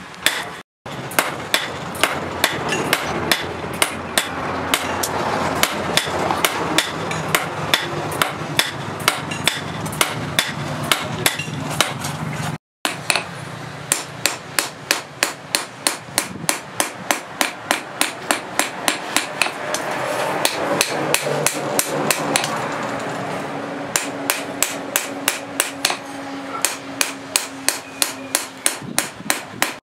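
Hand hammer striking a red-hot steel knife blade on a steel post anvil, forging it in a steady run of ringing blows at about two to three a second, with a steady low hum underneath.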